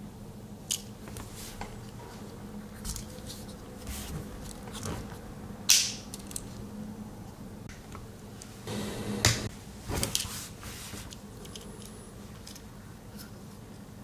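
Victorinox Explorer Swiss Army knife being handled, its tools clicking as they are opened and closed: scattered sharp clicks with a short scrape around the middle, over a faint steady hum.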